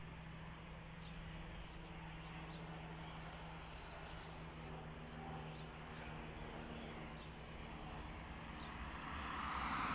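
Jet engines of a distant Airbus A320-family airliner taxiing: a low steady hum that grows louder near the end, with faint high chirps over it.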